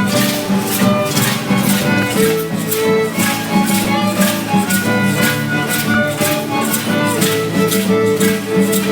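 Traditional dance music from a small string band, a violin playing the melody over guitar, with rattles shaken on a steady beat.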